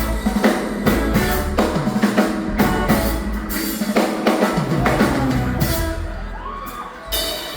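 Live band playing an instrumental passage with no singing: drum kit keeping a steady beat over bass notes. The music thins out briefly near the end, then comes back in with a hit.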